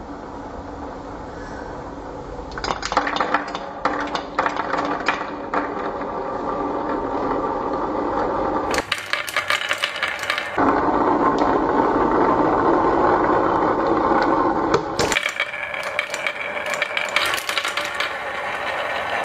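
Marbles rolling and clattering down a wooden marble-run ramp: a steady rolling rumble broken by bursts of rapid clicking and rattling.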